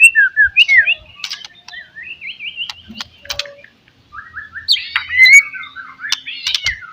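White-rumped shama (murai batu) singing: fast runs of sliding whistled notes mixed with sharp clicks, loud in the first second, softer through the middle with a short pause near four seconds, then loud again about five seconds in.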